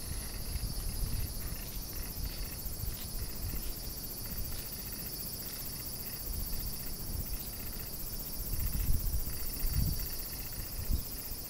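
Grooming brush strokes through a shedding Shiba Inu's thick coat: irregular muffled rubbing and low thumps close to the microphone, heaviest near the end, over a steady high-pitched insect chorus.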